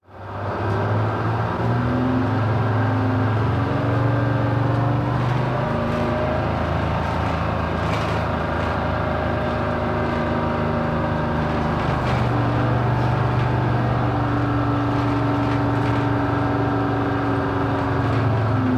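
City bus engine running with a steady low drone. Its note shifts a couple of times, with faint rattles and clicks over it.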